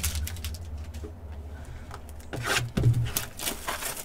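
Hands handling a sealed trading-card hobby box: a few light clicks and taps on the cardboard, then the plastic shrink wrap crinkling and rustling from about two to three and a half seconds in, over a steady low hum.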